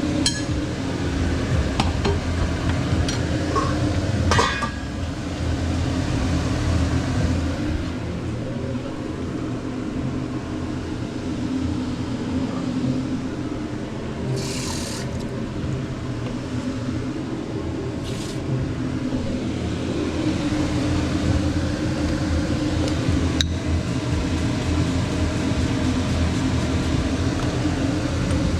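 Steady pan-frying hiss with a low hum beneath, as a chuletón steak cooks in butter. A few brief clinks of utensils on the pan, and two short, sharper hisses about halfway through.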